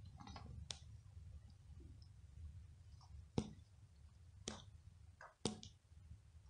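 Domestic cat purring in a low, steady rumble while being stroked, with four sharp clicks, the loudest about three and a half seconds in.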